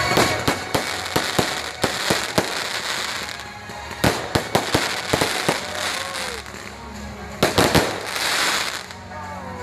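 Fireworks display going off in rapid volleys of sharp bangs, three clusters of them, with crackling between, and music playing underneath.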